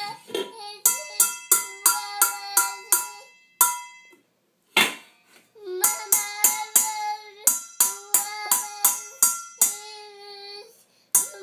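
Upturned stainless steel mixing bowls struck with a wire whisk in a loose, uneven beat, each hit clanging and ringing on. A small child sings held notes over the strikes. Everything stops briefly about four seconds in, then the playing and singing resume.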